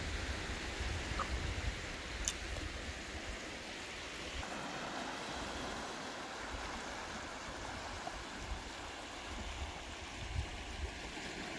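Small waves washing and lapping over a rounded-cobble beach, with gusts of wind rumbling on the microphone. A single sharp click comes about two seconds in.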